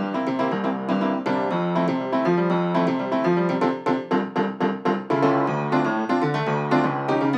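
Background piano music, a light keyboard tune with a run of quick, short repeated notes about four seconds in.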